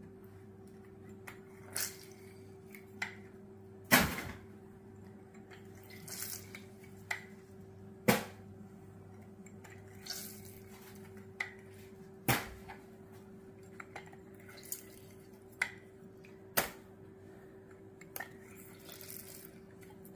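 A hand-held hinged plastic citrus press squeezing limes over a stainless steel mixing bowl. About a dozen sharp clacks and knocks come at irregular intervals, the loudest about 4 and 8 seconds in, with juice dripping and spattering into the bowl between them.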